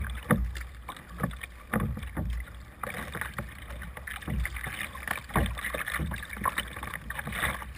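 Kayak paddle strokes: the double-bladed paddle's blades dipping and pulling through choppy water on alternate sides, a splash roughly once a second, over a low rumble of wind on the microphone.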